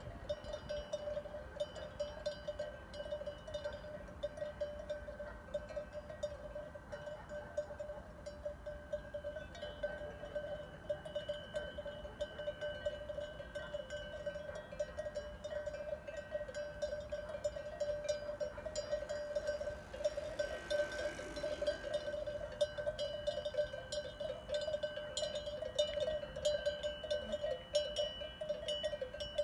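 Cowbells on a herd of cattle walking along a road, clanking continuously in a ringing jangle that grows a little louder near the end as the cows come closer.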